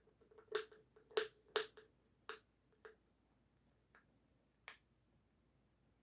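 Sharp clicks and taps of a screwdriver on a small hard part held in the hands: a quick run of about seven in the first two and a half seconds, then three scattered ones, each with a brief hollow ring.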